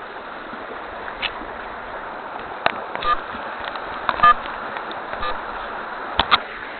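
A mountain stream rushing steadily over rocks, with a string of sharp knocks and scrapes close to the microphone as a gloved hand grips and hauls on a fixed climbing rope; the loudest comes about four seconds in, and two quick ones near the end.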